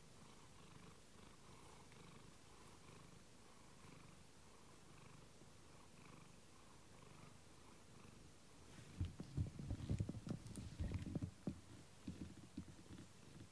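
Domestic cat purring steadily while being stroked on the head. About nine seconds in, a burst of loud rustling and bumps close to the microphone covers it for a couple of seconds.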